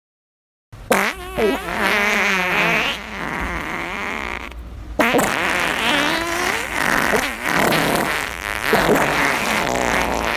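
Fart sound effects: long, wobbling, pitched farts beginning about a second in, with a brief break near the middle before more follow.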